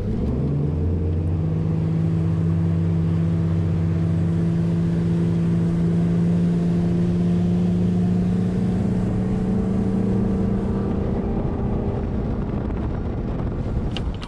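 Bass boat's outboard motor throttling up as the boat pulls away, then running steadily at cruising speed and easing off slightly near the end.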